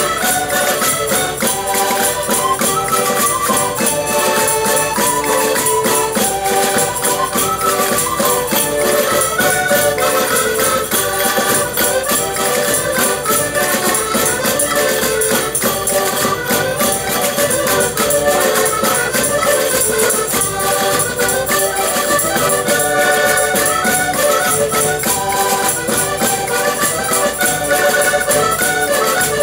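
A group of Portuguese concertinas (small diatonic button accordions) playing a lively traditional folk tune together, with tambourine jingles keeping a steady beat.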